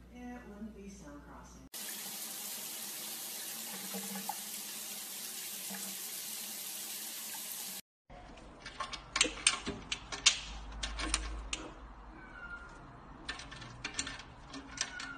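A steady hiss lasts about six seconds and cuts off suddenly. Then a cat paws at a key in a wire cage's lock, giving sharp metallic clicks and rattles in two bunches.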